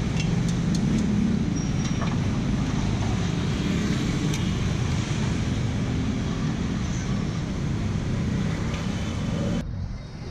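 Steady roadside traffic noise, with engines running past, strongest in the low range. Near the end the sound abruptly turns duller.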